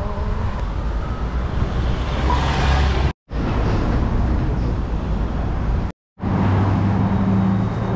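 Road traffic noise: vehicles passing and engines running, with low steady engine tones in the last few seconds. The sound drops out completely twice, very briefly, about three and six seconds in.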